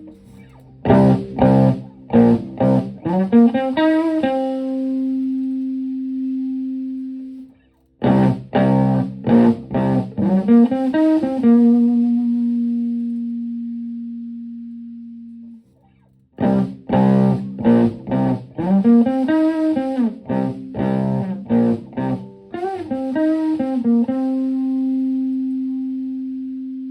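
Stratocaster electric guitar played through a Höfner 'The Höf' preamp into a clean Twin Reverb–style amp. Three short phrases of picked notes, each ending on a long held note that rings and slowly fades.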